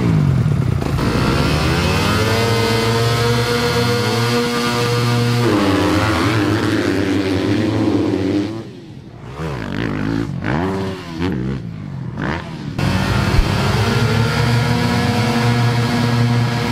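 Several Yamaha four-stroke motocross bikes revving on a starting gate, the engine pitch climbing for the first few seconds. About eight seconds in it drops to quieter bikes accelerating away, revving up and down through the gears. The loud revving comes back about thirteen seconds in.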